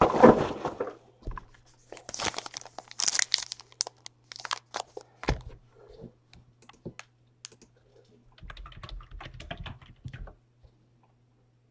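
Crinkling and tearing of plastic or foil wrapping, handled close to the microphone, with scattered sharp clicks. There is a bright crackly burst about two to four seconds in and a spell of rustling handling near the end.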